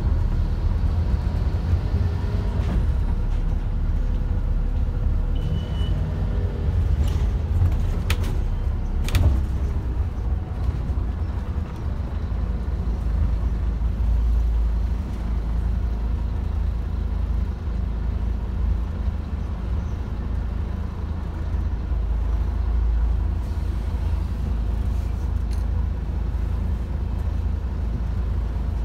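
Inside a Scania OmniCity bus on the move: steady low engine and road rumble with a few rattles and knocks. A short high ding about five seconds in is the stop-request bell.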